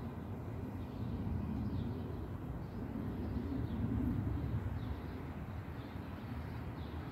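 Outdoor background: a steady low rumble that swells slightly in the middle, with faint short bird chirps about once a second.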